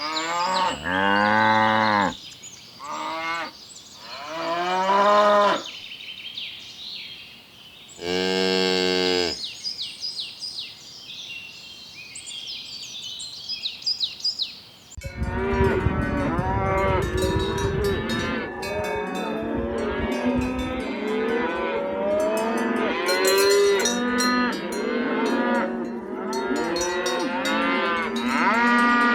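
Cattle mooing: a few separate long moos in the first half, then from about halfway through many overlapping moos at once, as from a whole herd.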